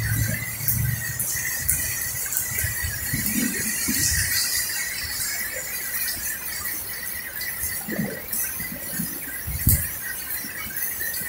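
Heavy rain falling steadily: a continuous hiss of the downpour with the patter and splashes of nearby drops. Short low thumps come now and then, the strongest near the end.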